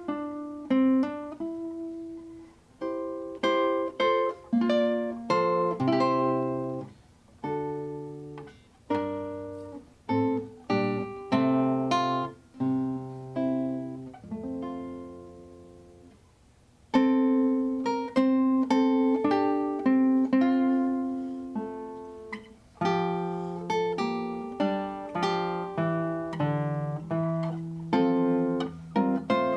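Solo classical guitar playing an arrangement of Christmas music: a plucked melody over bass notes. About halfway through the notes die away into a short pause, then the playing resumes with a loud chord.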